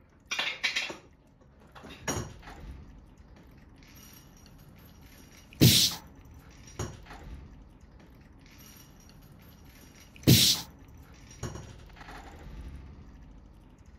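Cats scuffling on a wooden tabletop: paws knocking and scraping on the wood, with two sharp, loud knocks about six and ten seconds in and softer taps and scuffles between them.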